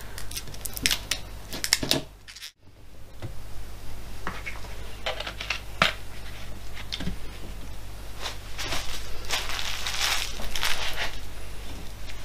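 Plastic protective film crinkling as it is peeled off a vinyl-wrapped MDF sign. Then a cloth rubs over the board, with a few light knocks of plastic bottles being picked up and set down.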